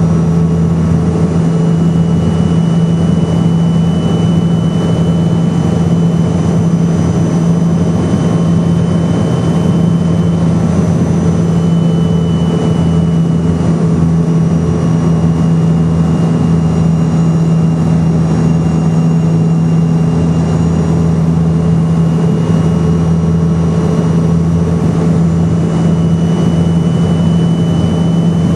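Steady cabin drone of an MD-82 airliner in flight, from its two rear-mounted Pratt & Whitney JT8D turbofans and the rushing airflow. A strong low hum dominates, with a faint high engine whine that wavers slightly in pitch.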